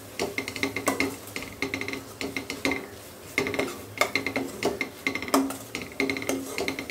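Metal slotted spatula scraping and clinking against a nonstick kadai as a thick tomato-spice masala is stirred. The strokes come about two a second, each with a brief metallic ring.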